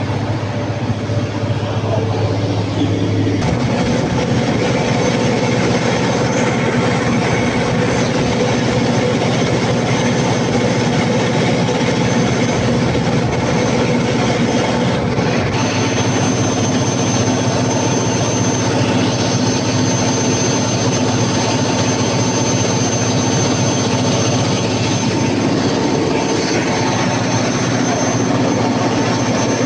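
Large diesel generator engine running steadily and loudly. Its tone shifts about three seconds in, and a thin high whine joins about halfway through.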